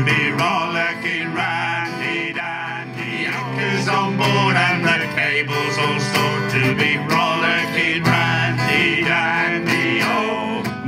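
A group of men singing a sea shanty together, accompanied by a strummed acoustic guitar.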